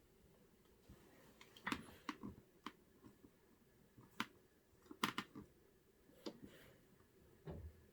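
Fridge magnets clicking and tapping against a refrigerator door as a baby plays with them: irregular sharp clicks, about eight, some with a dull knock.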